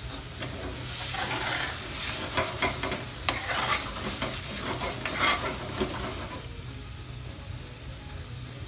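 Chicken saag curry sizzling in a pan as it is stirred, with repeated stirring strokes for about six seconds, then a quieter steady sizzle near the end.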